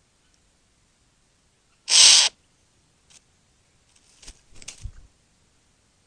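Male satin bowerbird giving one loud, harsh, hiss-like call about two seconds in, followed by a few fainter short scratchy sounds.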